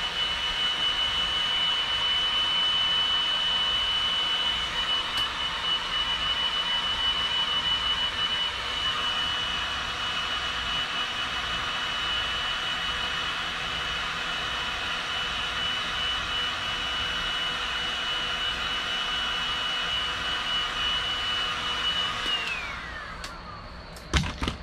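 Heat gun blowing steadily with a high fan whine, switched off about 22 seconds in so the whine falls away as the fan spins down, followed by a couple of knocks as it is set down.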